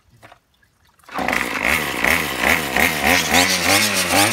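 Small gasoline engine of a weed whacker converted into an outboard motor, cutting in about a second in and running loud, its pitch rising and falling over and over as the throttle is worked.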